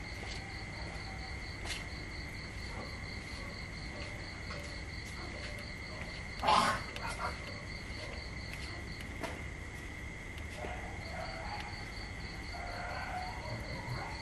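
Insects calling steadily in the grass: one high continuous trill, with a second, higher note pulsing several times a second that stops for about two seconds in the second half. A single brief, loud rustling knock about halfway through.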